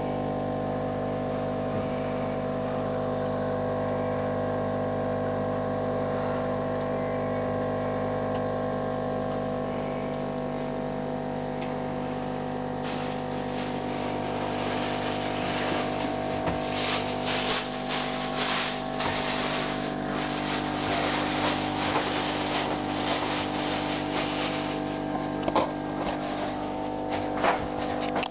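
Steady electric hum made of several tones, typical of an aquarium air pump driving sponge filters. About halfway through, irregular clicks and crackling join it and grow denser.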